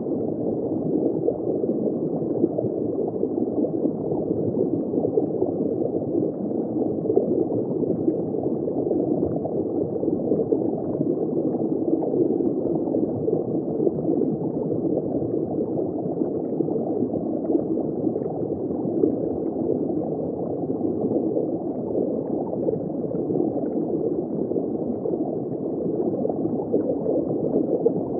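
Steady, muffled rush and gurgle of a reef aquarium's circulating water, heard from inside the tank with the camera submerged.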